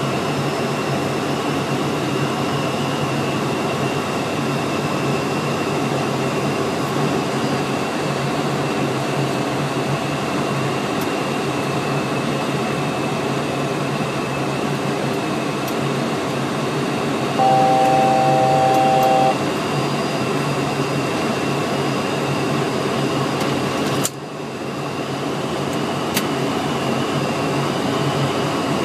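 Steady drone of engines and airflow in an airliner cockpit on approach. About two-thirds of the way through a steady electronic cockpit tone sounds for about two seconds. Near the end a click, after which the noise drops away and builds back over a few seconds.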